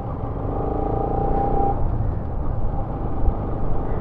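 Motorcycle riding at steady speed: the single-cylinder engine of a Bajaj Pulsar RS200 under a steady rumble of wind on the microphone. A steady pitched hum sits over it for the first second and a half or so, then drops away.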